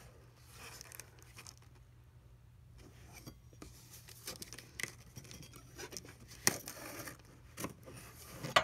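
Handling noises: scattered clicks, taps and light scraping, with two sharp knocks about six and a half and eight and a half seconds in.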